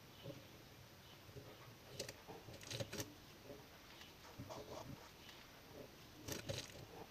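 Faint small metallic clicks and taps as a pair of hand sheet-metal shears is handled and its pivot nut turned by hand, in three short clusters about two, three and six seconds in.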